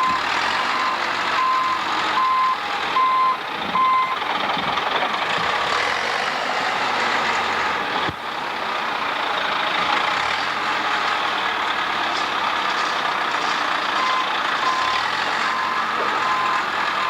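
A construction vehicle's backup alarm beeping, one steady tone about every three-quarters of a second, over the steady noise of a running engine. The beeping stops about four seconds in and starts again near the end.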